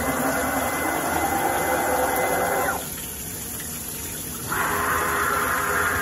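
CNC mill's coolant washdown spraying in two bursts. The first lasts nearly three seconds, and the second starts after a pause of under two seconds.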